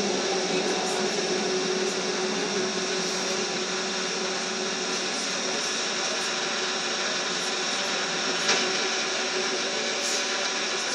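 Cabin running noise of a Škoda 15Tr articulated trolleybus: a steady electric whine and hum over road noise, with two faint clicks near the end.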